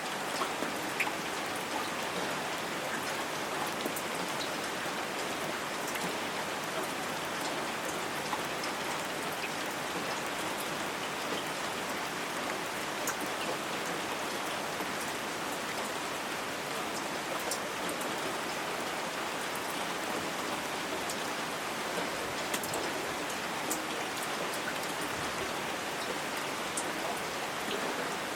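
Light rain falling steadily, an even patter with scattered individual drop ticks.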